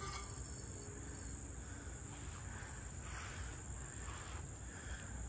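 Steady high-pitched buzzing of insects over a low rumble.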